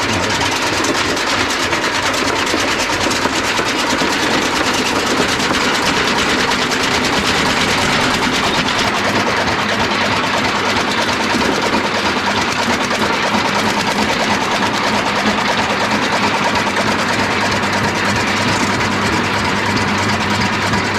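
Motorised chaff cutter running steadily, chopping thick Super Napier grass stems into short pieces.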